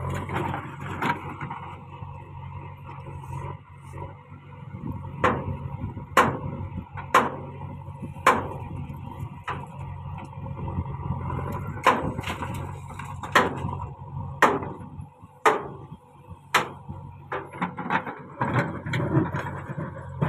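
JCB 3DX backhoe loader's diesel engine running steadily while it loads murum into a tipper, with repeated sharp knocks and clanks, some of them loud, coming at irregular intervals and bunching together near the end.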